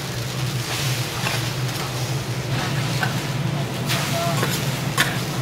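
Okonomiyaki shop ambience: a steady low hum under a faint sizzle, with a few sharp clacks and faint background voices.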